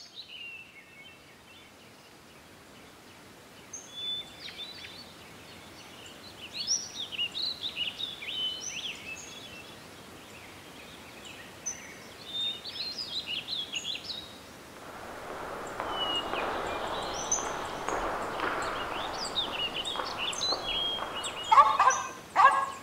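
Birds chirping and twittering. About two-thirds of the way through, a rushing noise swells in under them, and near the end come a few short, loud, pitched sounds.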